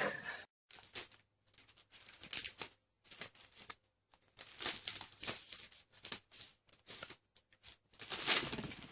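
Irregular bursts of crinkly rustling that start and stop every second or so, the loudest near the end.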